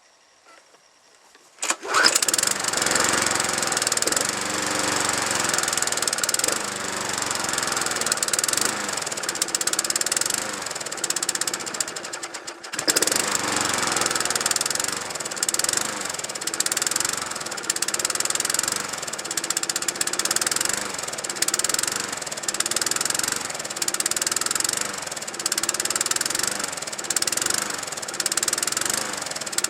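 Lawnmower engine running on a tank of nitro fuel mixed with engine oil: it fires up suddenly about two seconds in and runs loud. Near the middle it nearly dies for a moment, then picks up again and surges in a rhythmic rise and fall about once a second.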